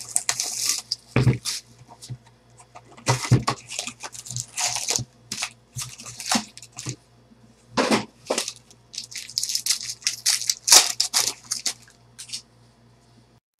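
Shiny foil trading card pack wrappers (Bowman football packs) being torn open and crinkled by hand, in irregular short bursts of crackling.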